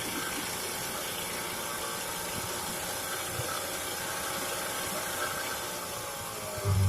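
Early-1950s Goodyear Sea Bee 5 two-stroke outboard motor running steadily at idle, its pitch wavering slightly, with a louder low burst near the end.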